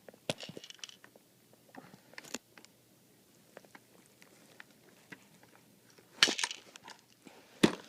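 Handling clicks and knocks from a bipod being worked on its mounting screw on an airsoft sniper rifle: scattered small clicks, with sharper knocks just after the start, around two and a half seconds, and a cluster around six to seven and a half seconds.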